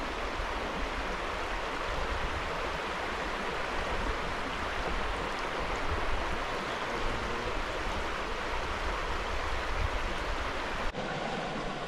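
Creek water rushing steadily over a rocky bed.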